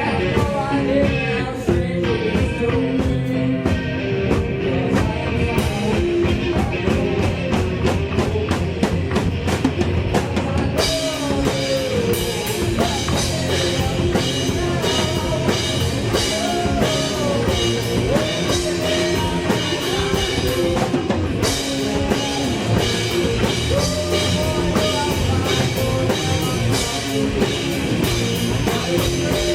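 Rock band playing live, with drum kit, electric guitar and a wavering melodic line. About eleven seconds in, the cymbals come in and the sound turns fuller and brighter.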